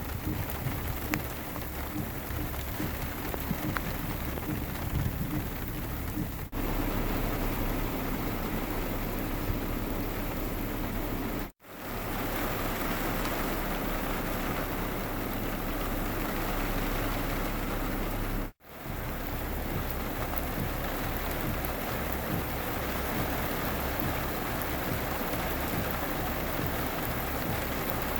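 Steady rain falling, with a low rumble underneath, in several recordings spliced together: the sound cuts abruptly about six seconds in, again near the middle, and again about two-thirds of the way through.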